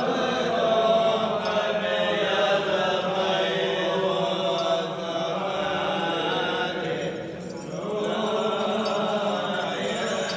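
Orthodox clergy chanting the funeral liturgy: long melodic phrases with held notes, with a short break about seven and a half seconds in before the chant picks up again.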